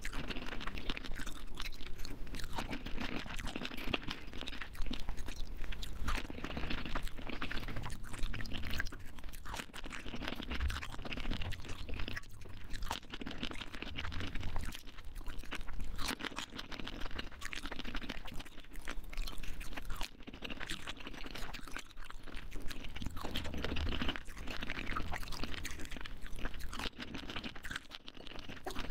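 Close-miked crunching and chewing of pani puri: crisp, hollow fried puris filled with green pani, bitten and chewed one after another with dense crackling throughout.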